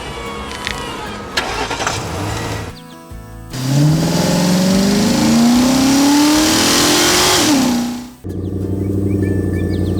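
Car engine sound effect revving up, its pitch climbing steadily for about four seconds before dropping away, then cutting to a steady engine idle near the end.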